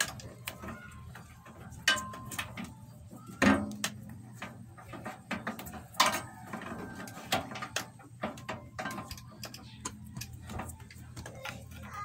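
Irregular clicks and light knocks from handling tools and a power cord on a workbench, over a steady low hum.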